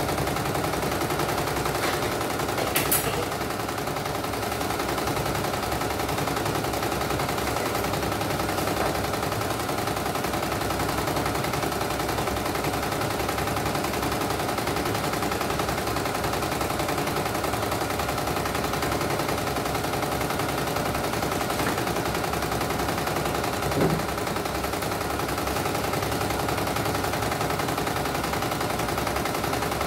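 CNY E900 portable computerised embroidery machine stitching a test design: a fast, steady needle clatter. A louder click stands out about three seconds in and again about twenty-four seconds in.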